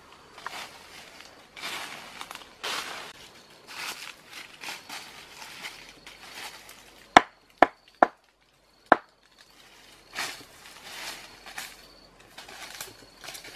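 Footsteps crunching through dry leaf litter, broken about seven seconds in by four sharp machete strikes on wood within about two seconds, the loudest sounds. The crunching steps in the leaves then resume.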